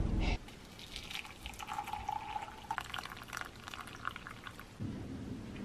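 Water poured in a thin stream into a ceramic mug over an herbal tea bag, trickling and splashing as the mug fills.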